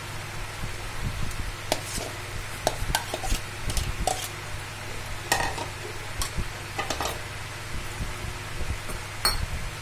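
A steel spoon clinking and scraping against a bowl and a steel kadai, about a dozen irregular knocks, as mashed boiled potato is spooned into ragda, over the steady bubbling hiss of the curry boiling hard.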